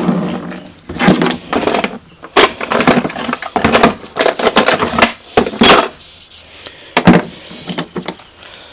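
Loose hand tools and markers being rummaged from a toolbox and set down, with irregular clattering and sharp knocks.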